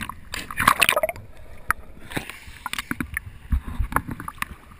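River water sloshing and lapping against a GoPro's waterproof housing held at the surface, with irregular small knocks and gurgles as the camera bobs; a louder splash comes about half a second in.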